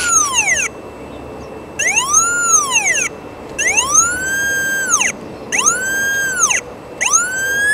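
Pipehorn 800HL pipe locator's receiver tone sliding up and down in pitch, with three full rise-and-fall swells and short gaps between them, then rising again near the end. The pitch tracks signal strength as the transmitter is aligned over a buried metal line.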